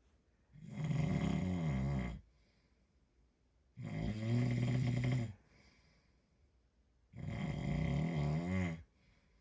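A man snoring in his sleep: three snores, each about a second and a half long and evenly spaced, with quiet between them.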